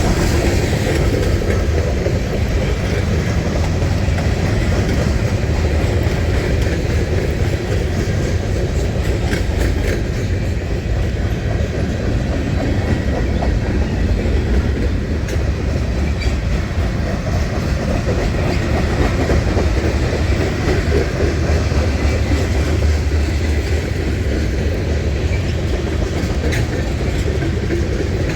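Freight train rolling past, its cars' steel wheels clattering steadily over the rail joints.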